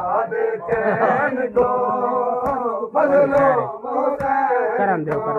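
Men's voices chanting a Punjabi noha together in drawn-out phrases, a mourning lament for Imam Hussain, with a few sharp slaps of hands beating on chests (matam).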